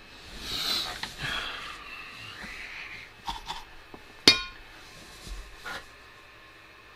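A long breathy exhale, then a few light clicks and one sharp metallic clink with a brief ring as the soldering iron is set down, followed by a couple of softer knocks.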